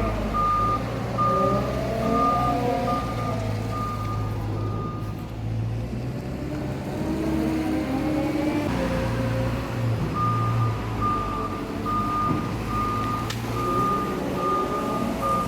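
A heavy vehicle's reversing alarm beeping a little over twice a second over its engine's steady low running. The beeping stops about five seconds in and starts again about ten seconds in.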